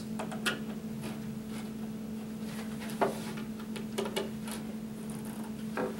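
Scattered light clicks and knocks of a hutch panel being seated and its cam locks turned with a cross-point screwdriver, the sharpest knock about three seconds in, over a steady low hum.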